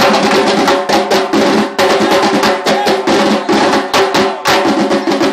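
Samba school bateria playing a samba beat together: deep surdo bass drums under fast repiniques and snare drums. The whole section comes in at once, loud, with a dense, driving rhythm.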